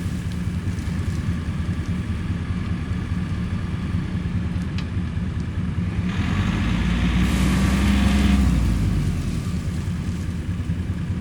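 Vehicle engine running steadily, then surging louder about six seconds in for a couple of seconds before settling back.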